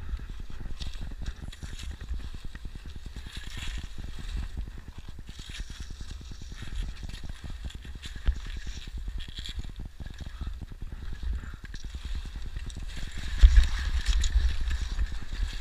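Wind buffeting the microphone of a body-worn camera on a ski slope: a fluttering low rumble with a faint hiss above it, growing louder about 13 seconds in.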